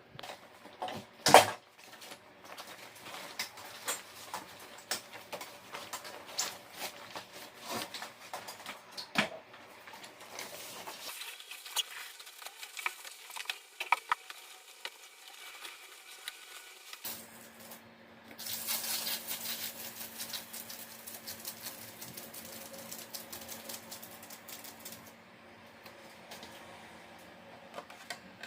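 Repeated light clicks and clattering of hard parts being handled, with one loud knock about a second in and a stretch of steady hissing in the second half.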